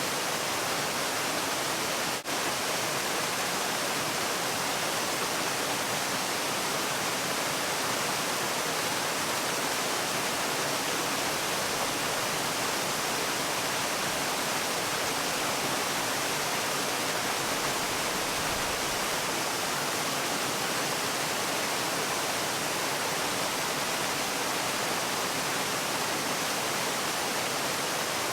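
Waterfall: falling water making a steady, even rush that sounds like white noise, with a split-second drop in level about two seconds in.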